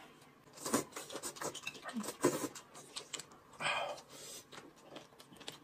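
Quiet eating sounds: noodles being slurped and chewed, with light clicks of chopsticks on the plates. A few short bursts stand out, the clearest a little after three and a half seconds in.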